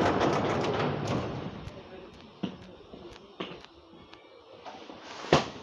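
Inside a Copenhagen Metro car pulling out of a station: a rushing train noise that fades away over the first two seconds, then three sharp knocks, the loudest near the end.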